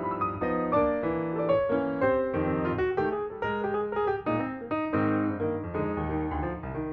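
Background piano music, a run of notes changing several times a second.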